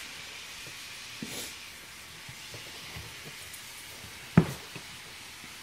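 Soft handling noises as a puppy is held and rubbed by hand: faint rustles and taps over a steady hiss, with one sharp knock about four seconds in.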